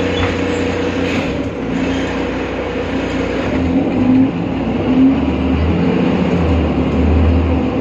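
BredaMenariniBus Avancity Plus Euro 5 city bus with ZF gearbox running: a steady mechanical drone with a constant hum through it. Over this sits a low rumble that swells and fades several times in the second half.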